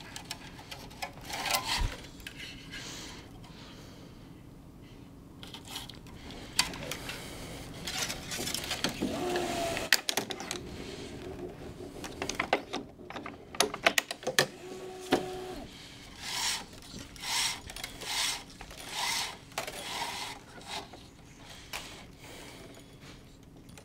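Nylon tennis string being woven through the main strings of a racquet and pulled through by hand: a run of short rubbing swishes, about one a second in the second half, mixed with sharp clicks and light knocks of the string and frame on the stringing machine.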